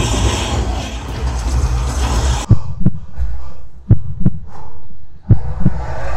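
OXS S5 Dolby Atmos soundbar, with its 4-inch bass driver, playing bass-heavy content at volume 40. A dense full-range wash runs for about two and a half seconds, then come deep thuds in pairs, like a heartbeat, about three times.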